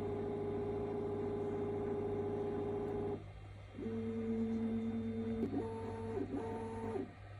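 Bambu Lab X1 Carbon 3D printer's stepper motors whining as the printer homes and drives its bed: one steady whine until about three seconds in, then after a short pause a lower two-tone whine that breaks off twice before stopping near the end.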